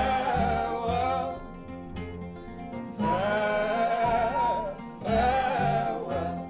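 A male voice sings long held notes in three phrases over a plucked nylon-string classical guitar.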